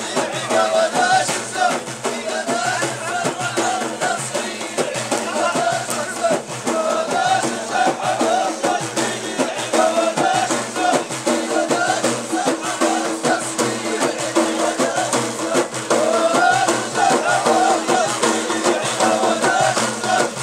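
Ahidous: a line of men singing together, with hand-held bendir frame drums and hand claps beating a steady rhythm under the voices.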